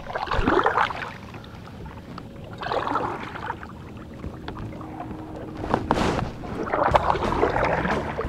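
Double-bladed kayak paddle dipping and pulling through calm lake water, splashing with each stroke about every two to three seconds. A sharp knock about six seconds in.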